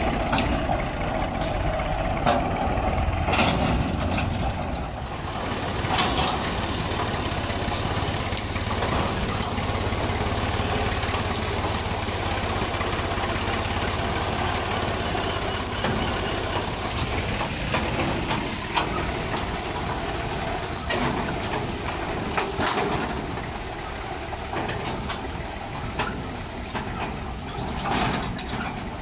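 Old 480 tractor's diesel engine running steadily, with a few sharp knocks or clatters.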